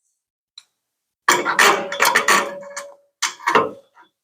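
Metallic clanking from dent-pulling work on a sheet-steel truck bed: a quick cluster of sharp knocks with a ringing metal tone starts about a second in, then a shorter knock comes about two seconds later.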